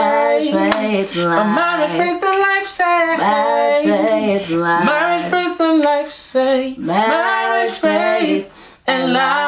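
A man and a woman singing a short welcome song together, unaccompanied, with held, gliding notes; a brief break near the end.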